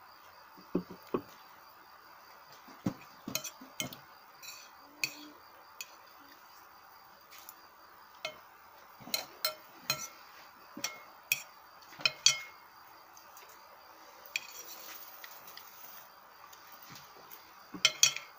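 Scattered clinks and knocks of utensils and stainless-steel bowls handled on a table during food preparation, coming at irregular moments with short quiet gaps between them.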